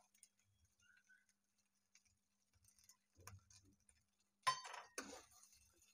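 Mostly near silence with a few light clinks of a metal spoon against a steel pan; the two loudest come about four and a half and five seconds in, each with a short ring.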